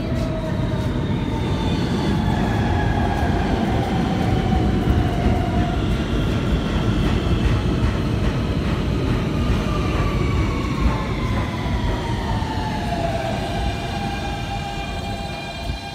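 New York City subway train pulling into a station and slowing: a loud, steady rumble of wheels on rail, with a whine from the traction motors that falls steadily in pitch as the train brakes and levels off near the end.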